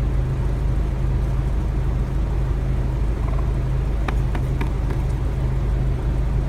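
Steady low rumble of a motor vehicle engine running at idle. About four seconds in, three quick sharp taps as a wild turkey strikes at a convex mirror.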